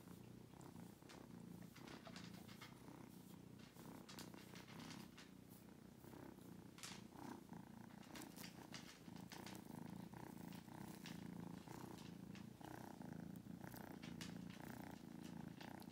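A kitten purring faintly and steadily as a soft toothbrush is rubbed over its face and fur, with short scratchy rustles of the bristles on top of the purr.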